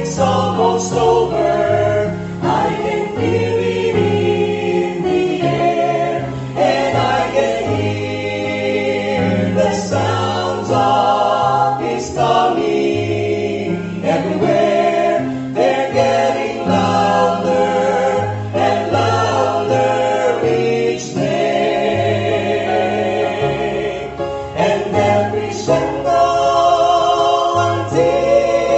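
Gospel vocal quartet singing in close harmony, with held notes that waver in vibrato over a sustained bass part.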